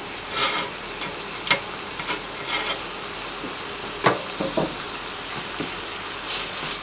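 Onions and tomatoes sizzling in hot oil in a stainless-steel frying pan as chopped pepper is scraped in off a chopping board and stirred with a silicone spatula. A few short scrapes and knocks of the spatula sound over the steady sizzle, the sharpest about four seconds in.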